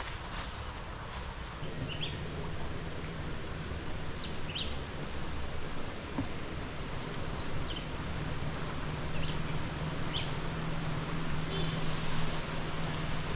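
Shallow river flowing with a steady rush, with several short bird chirps over it and a low steady hum underneath.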